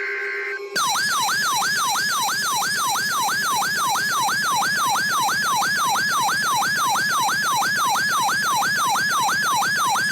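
RadioShack 12-991 weather radio's electronic alert siren, starting just under a second in: a loud wail that sweeps down in pitch and snaps back up a little over three times a second. It signals that the radio has received a new warning, here an updated severe thunderstorm warning.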